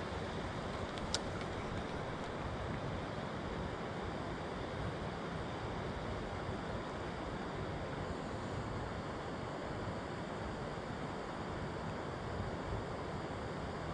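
Steady wind noise rushing over the microphone, with one light click about a second in.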